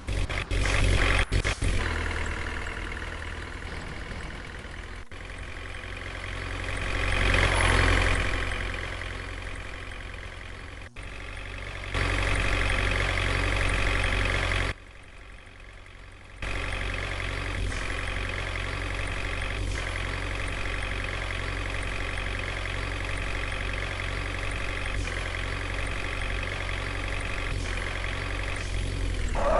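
Heavy diesel machinery engine running steadily, swelling louder for a moment about seven seconds in, with several abrupt jumps in level.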